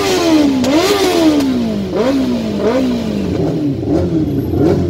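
Superbike engine being revved in a series of throttle blips: each rev jumps up quickly and falls back slowly, about three big ones in the first three seconds and several smaller ones after.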